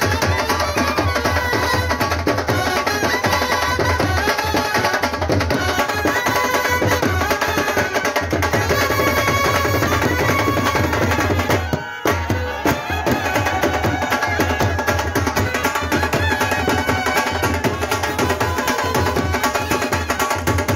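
A band with a dhol drum playing, a held melody over steady, driving drumming, with a brief break about twelve seconds in.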